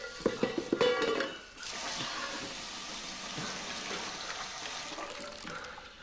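A metal saucepan clattering and ringing for about a second and a half, followed by a steady rushing noise that fades near the end.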